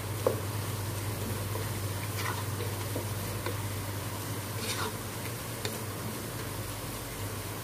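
Sliced onions frying in oil in a pot, a steady sizzle with scattered crackles, as a wooden spatula stirs them and now and then clicks against the pan. The onions are turning light brown.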